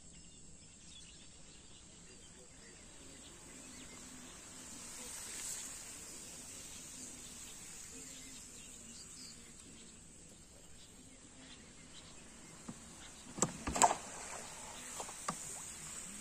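Steady high-pitched insect drone over quiet wetland ambience. About three-quarters of the way in, a quick cluster of sharp wooden knocks, with one more a second later, from the plank boat as the spear fisherman crouched on it shifts and stands up.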